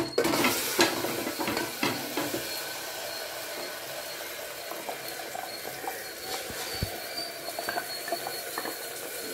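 Wet ground onion, tomato, ginger and green-chilli masala paste sizzling in hot oil in a pressure cooker, a steady hiss as the paste starts to fry. There are a few sharp knocks in the first couple of seconds as the mixer jar is emptied into the cooker.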